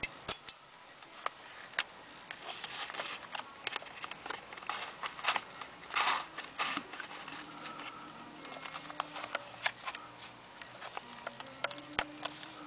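Handling noise from a telescopic screwdriver and a leather pouch of precision screwdrivers: scattered sharp clicks of metal and plastic, a burst of rustling and clicking from about two to seven seconds in as the drivers are slid into the pouch, and more clicks near the end as the pouch is folded shut.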